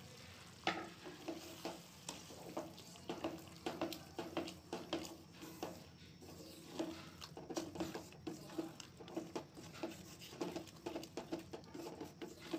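A spoon stirring chickpea and potato curry in a metal pot, with repeated irregular knocks and scrapes against the pot, over a faint simmering sizzle.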